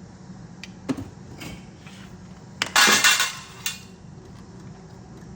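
A few light metallic clicks, then a brief loud metal clatter about three seconds in and a smaller knock just after it.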